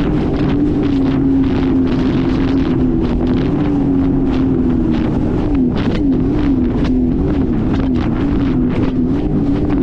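Sea-Doo GTX 230 personal watercraft's three-cylinder Rotax 1630 ACE engine running at cruising speed. Its pitch holds steady, then rises and falls about once a second through the second half. Heavy wind buffets the microphone.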